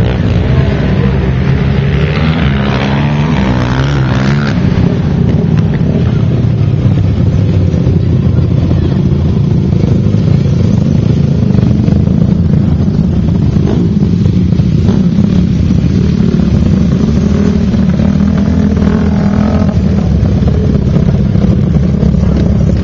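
Engines of youth racing quads running on the track, revving up and down about two to four seconds in.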